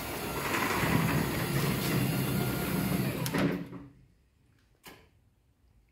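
Wiśniowski sectional garage door opening under its MIDO 600 operator: the drive motor and door run steadily, then stop about three and a half seconds in. A single short click follows about a second later.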